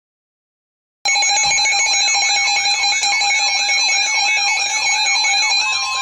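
Emergency Alert System alert tone for a severe thunderstorm warning, cutting in abruptly about a second in: a loud steady electronic tone overlaid by a warble that sweeps up and down about two and a half times a second.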